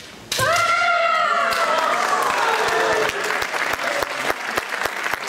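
A kendoka's kiai: a sharp crack, then one long shout that slides down in pitch over about two and a half seconds. Applause starts under the shout about a second and a half in and carries on as the referees raise their flags for a point.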